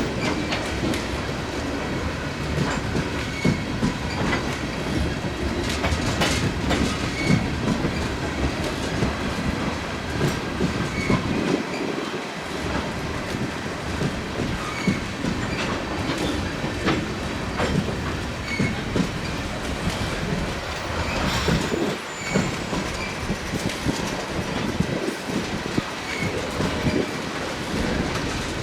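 Freight train rolling slowly through a switching move: steel wheels clacking over rail joints, with scattered knocks and brief, faint wheel squeals.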